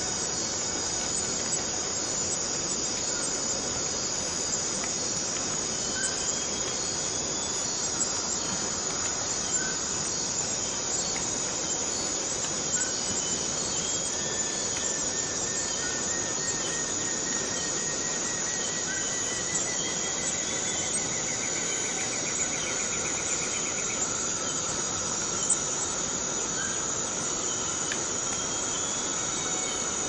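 Borneo rainforest cicadas in a steady, high-pitched chorus, with short chirps every second or two and a long, slowly rising trill through the middle.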